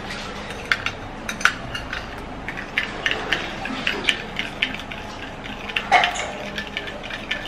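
A metal spoon stirring a grainy sugar-and-honey scrub in a cut-glass bowl, clinking and scraping against the glass in quick, irregular taps, with one louder clink about six seconds in.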